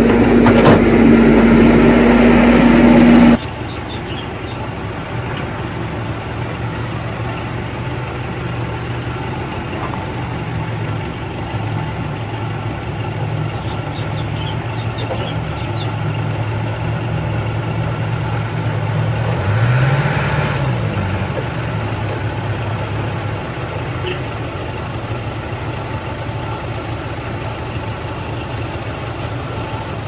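Excavator engine running loud with a steady hum for about the first three seconds, cut off suddenly. Then a small dump truck's engine idling steadily, with a brief rise and fall in pitch about twenty seconds in.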